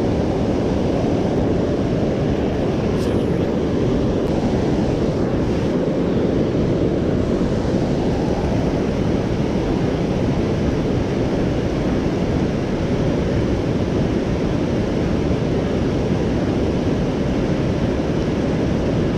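Steady rushing noise of wind buffeting the microphone, blended with the flow of a fast river running over a weir.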